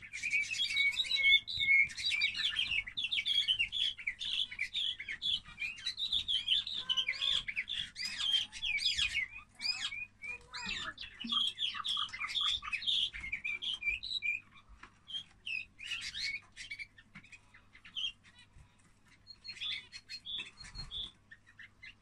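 Young canary, about three months old, singing its first, still unformed song: a fast, continuous run of chirps and trills for the first half, breaking into shorter, scattered phrases after about fourteen seconds.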